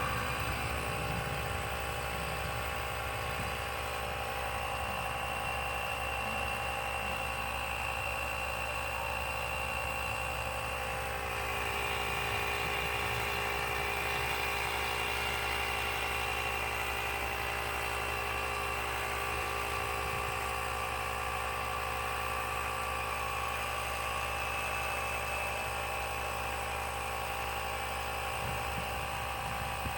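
Electric air compressor running steadily with a high whine, its pitch shifting slightly about eleven seconds in, while tyres are being pumped up.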